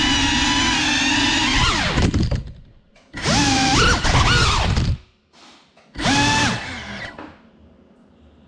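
Brushless motors of a Cinelog 35 cinewhoop FPV drone whining steadily at hover, then dropping in pitch about two seconds in. Two short throttle bursts follow, with the pitch gliding up and down, and then the motors wind down and stop as the drone settles on the floor.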